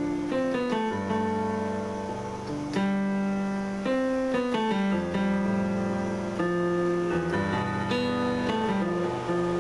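Synthesizer keyboard being played: a run of chords and melody notes over a bass line, changing about every half second to a second.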